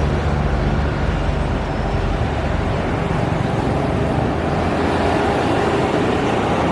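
Loud, steady vehicle noise with a low rumble, starting and stopping abruptly.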